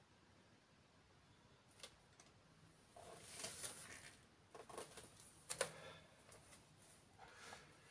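Faint rustling and light tapping from a person moving about while exercising, starting about two seconds in after near silence, with a few sharper clicks around the middle.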